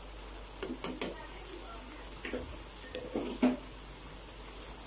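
A metal spoon clinking and scraping against a metal karahi several times as garlic paste is added, over a faint sizzle of chicken and onions frying in it.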